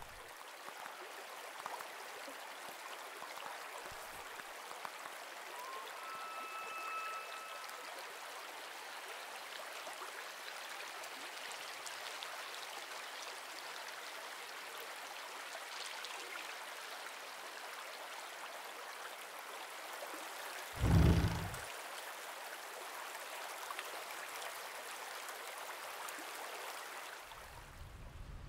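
Steady sound-design ambience of flowing, trickling water. A faint high tone is held briefly about six seconds in, and a single deep low thump about a second long, the loudest sound here, comes about three-quarters of the way through.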